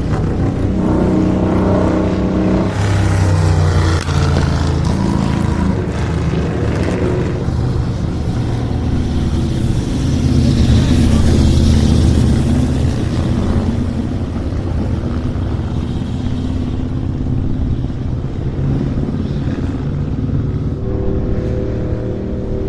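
Racing motorcycle engines running and revving on a track, the pitch rising and falling as the bikes go through their gears and pass, swelling louder around the middle.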